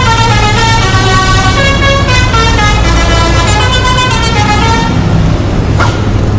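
Bus musical horn playing a tune of quick stepped notes over the steady low rumble of the bus engine; the horn stops about five seconds in, leaving engine and road noise.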